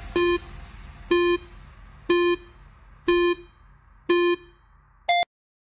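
Countdown timer sound effect: five identical electronic beeps about one second apart, then a shorter, higher final beep that marks time up.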